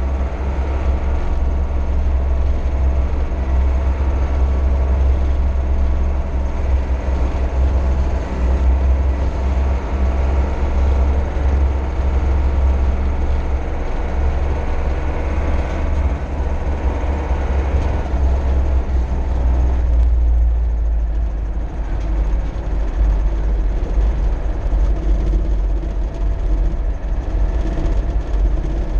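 Mercedes-Benz MB Trac 800 tractor driving along a road, heard from inside the cab: its four-cylinder diesel engine gives a steady low drone under the noise of the cab and drivetrain. About twenty seconds in the sound eases a little as the tractor slows.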